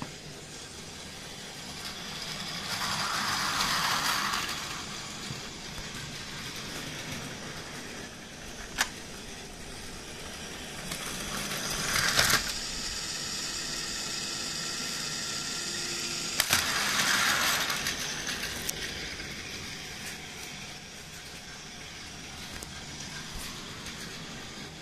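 Battery-powered Plarail toy train (Tobu 70090 series model) running on plastic track, its small motor and gears whirring. It swells louder three times as it passes close by, with a few sharp clicks of the wheels over track joints.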